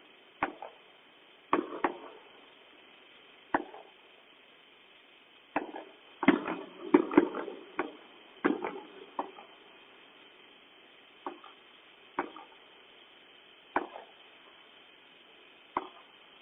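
Fireworks going off: irregularly spaced sharp bangs, each with a short echoing tail, with a quick cluster of bangs about six to seven seconds in.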